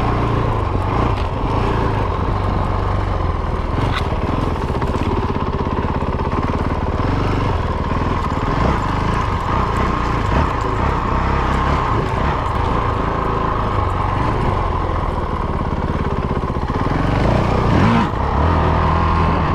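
Honda CRF450RL dirt bike's 450 cc single-cylinder four-stroke engine running steadily as the bike rides along a trail, heard from a camera mounted on the bike. A couple of sharp knocks cut through, about four seconds in and near the end.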